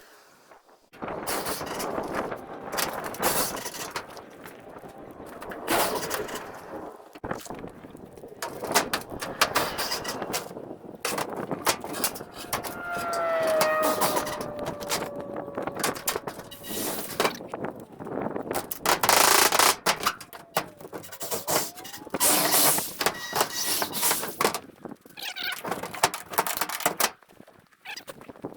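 Power drill driving screws through tin roofing sheet into a wooden frame, working in repeated bursts, with a short falling squeal about halfway through.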